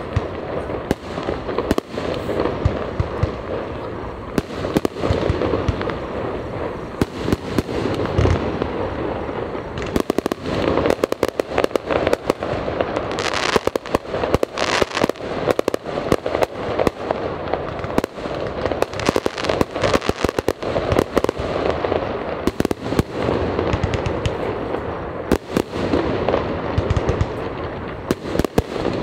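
Aerial fireworks display: a dense, irregular string of sharp bangs and crackling pops, one after another, over a continuous rumbling noise. About halfway, the crackle briefly turns brighter and hissier.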